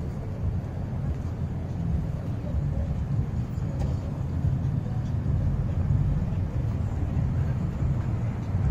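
Road traffic at a busy intersection, a steady low rumble.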